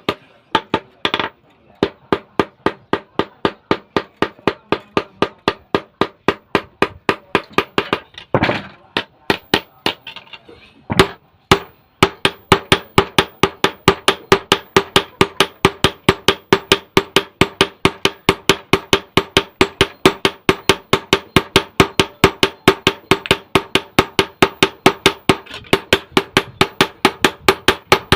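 Blacksmith's hammer striking metal on an anvil, each blow ringing. The strikes are irregular with short pauses at first, then a little before halfway settle into a fast, steady rhythm of several blows a second.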